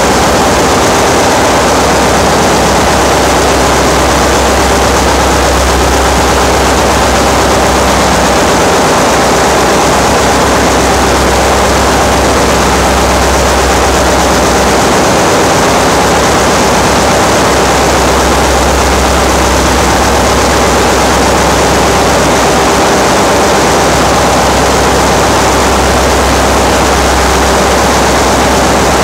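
Loud, steady din of ship's engine-room machinery running, a dense continuous noise with a few steady hum tones. A deep low hum fades out twice, briefly near the middle, and returns.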